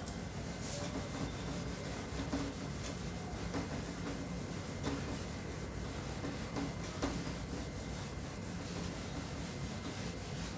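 Felt whiteboard eraser rubbing across a whiteboard, wiping off marker writing in repeated strokes.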